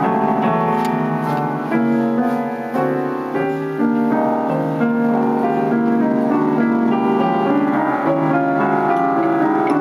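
Upright piano being played: a classical-style piece of melody over chords, with notes struck about once a second and held.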